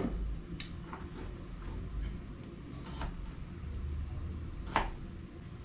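Scattered light clicks and knocks, four or so spread unevenly, the last the loudest, over a low steady rumble.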